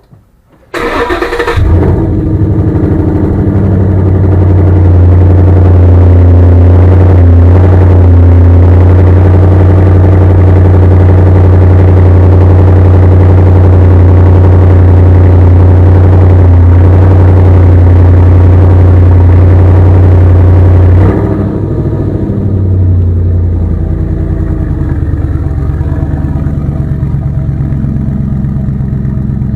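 A 2012 Ford Mustang Boss 302's 5.0 L V8 heard at its side-pipe exhaust with the resonators deleted: it starts about a second in with a loud flare, then runs at a steady high idle, and about 21 seconds in drops to a lower, less even idle.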